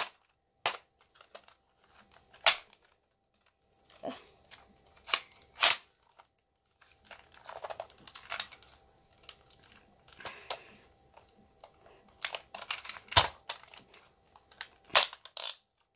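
Plastic clicks and rattles of a Nerf blaster being broken open and handled, with a sharp click every few seconds and softer rustling in between.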